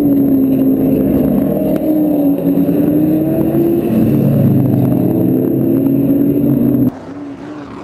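Classic racing cars' engines running hard on a race track, a loud, dense drone whose pitch creeps slowly upward. It cuts off abruptly near the end.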